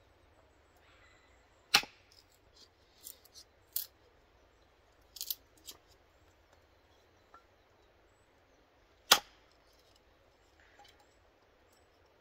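Hatchet splitting kindling on a wooden chopping block: two sharp chops about seven seconds apart, with lighter knocks and cracks in between as the wood splits and pieces fall.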